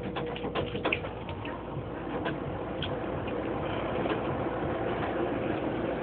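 Drinking fountain's water stream splashing into its stainless-steel basin: a steady rushing that grows a little louder after about two seconds, with a few sharp clicks in the first second.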